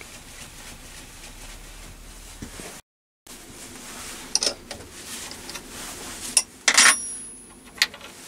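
Sharp metallic clinks of a steel ring spanner on a lathe's vertical-slide vice as the vice is loosened and the milled bar is taken from its jaws: a handful of separate clinks, the loudest cluster a little before the end.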